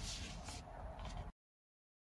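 Origami paper rustling and rubbing on the table as hands press and smooth a small square fold. It cuts off abruptly about 1.3 seconds in, followed by dead silence.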